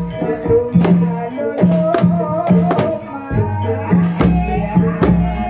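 Live Javanese gamelan music: sharp kendang hand-drum strokes over ringing bronze kettle gongs and metallophones, with deep low gong notes near the middle.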